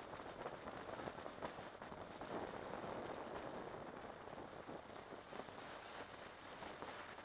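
Wind and road noise picked up by a camera mounted on a moving motorcycle: a steady, dense crackling rush with no distinct engine note.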